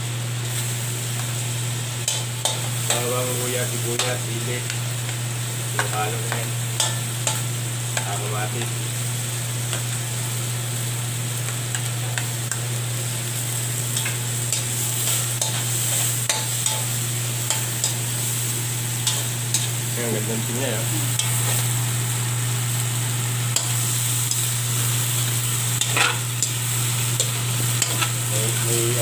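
Chicken and vegetables sizzling in an aluminium wok while a metal spoon stirs them, with frequent sharp clicks and scrapes of the spoon against the pan. A steady low hum runs underneath.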